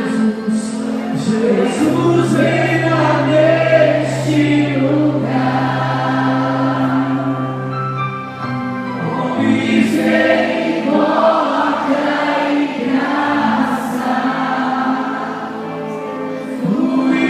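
A congregation or worship choir singing a Christian song together, with music backing and a low sustained bass note through the first half.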